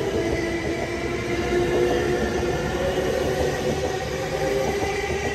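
JR East E231-500 series electric commuter train pulling out of the station and gathering speed: a steady whine from its traction motors over the rumble of wheels on the rails.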